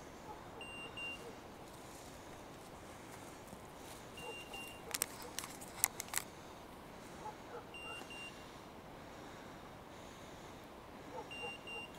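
Hunting dog's beeper collar sounding a short double beep about every three and a half seconds, the search-mode signal that the dog is still moving and not on point. A few sharp clicks come about five to six seconds in.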